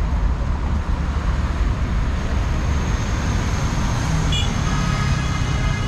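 Road traffic: a steady low rumble of passing cars and buses. A high, steady pitched tone joins about four and a half seconds in.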